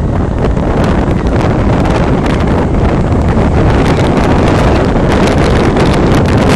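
Loud wind buffeting the microphone: a steady low rumble broken by rapid crackles.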